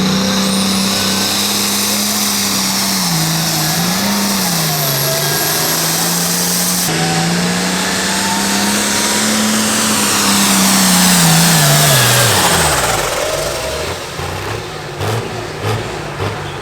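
Pro Farm class diesel pulling tractor running flat out under load as it pulls the sled, its engine note dipping briefly about three seconds in. Near the end the engine winds down steeply with a falling high whistle as the pull ends, then idles lower with a few sharp pops.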